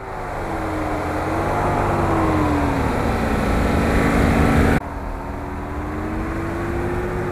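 Nissan Patrol's engine under load as it ploughs through deep snow, its revs rising and falling. The sound cuts off abruptly about five seconds in and the engine picks up again, running more steadily.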